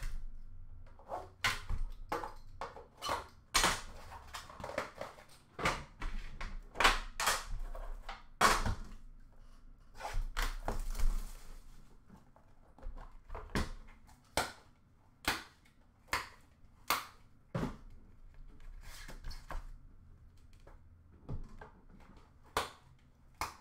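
A metal Upper Deck The Cup hockey card tin and its contents being handled: a string of sharp clicks, knocks and clatters as the tin is opened and the cards taken out, with a longer rustle about ten seconds in.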